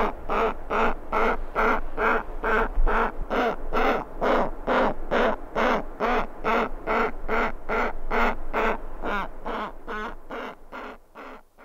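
Giant petrel chick begging for food: a rapid, even series of short calls, about three a second, fading away near the end.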